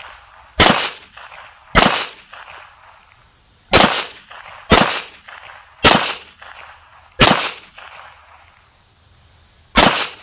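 CZ 83 pistol in .380 ACP firing seven shots at an uneven pace, about one to two seconds apart, each with a short echoing tail. It is a function test with 90-grain jacketed hollow-point ammunition.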